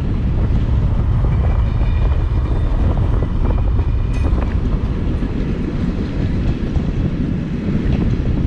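A train running, heard under heavy wind buffeting the microphone, with a steady low rumble. A few faint thin high tones come in during the first half and stop about halfway through.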